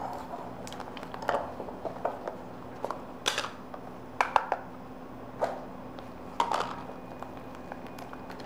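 Irregular knocks and scrapes of a utensil against a pot while butter is stirred into freshly cooked pastry cream, over a steady low hum.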